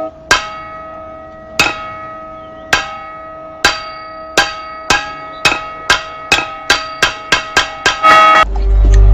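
Large hanging temple bell struck again and again, each stroke ringing on at the same pitches, the strokes coming faster and faster until they run into a rapid roll. Near the end a loud deep boom comes in under it.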